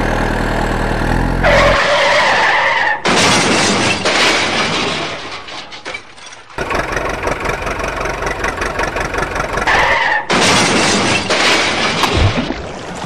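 Truck sound effects dubbed over the footage: an engine running low for the first second or so, then a screech, then long spells of loud rushing, crashing noise that break off and start again abruptly.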